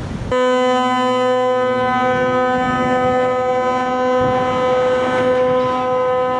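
A ship's horn sounding one long, steady blast that starts abruptly about a third of a second in, over the rush of water from a cargo ship's hull sliding sideways into the canal at its launch.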